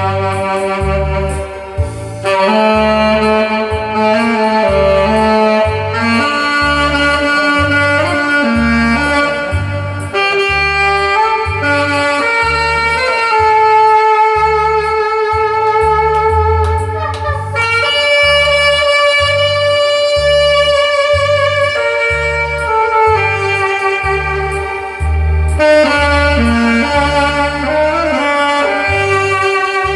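Saxophone playing a trot melody, with long held notes that waver in places, over a backing track with a steady bass beat.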